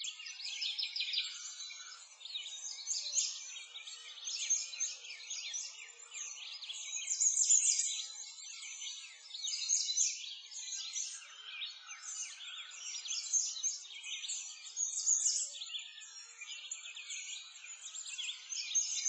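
A dense chorus of many small birds chirping and trilling without a break, all high-pitched, rising and falling in strength every second or two.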